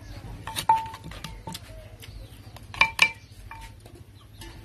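Sharp clinks and knocks of a wooden pestle and spoon against a clay mortar while papaya salad is pounded and mixed. The loudest clink comes just under a second in, and two more ring out close together about three seconds in.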